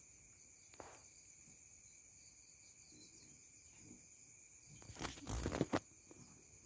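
Steady high chirring of night crickets, with a brief loud scuffing rustle about five seconds in.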